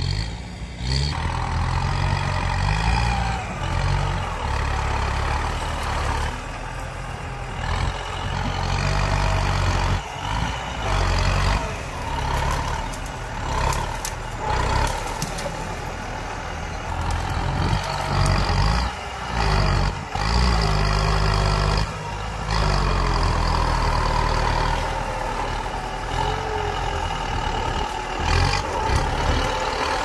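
Farm tractor's diesel engine working under load as it pushes earth with a front dozer blade. It surges and eases every few seconds, with a wavering whine riding above the engine rumble.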